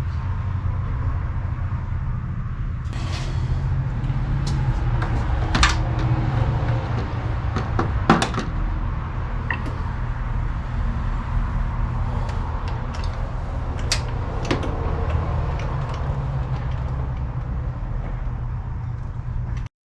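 Scattered metallic clicks and knocks of hand tools and parts being handled during engine work, over a steady low rumble.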